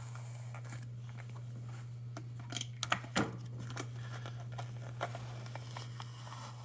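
Thick vinyl fork graphics being peeled off a dirt bike's fork tube, with scattered crackles and ticks that bunch together about two and a half to three seconds in. A steady low hum sits underneath.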